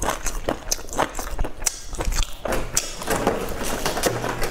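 A person chewing a mouthful of soft meat-filled bun, with a run of irregular mouth clicks and smacks.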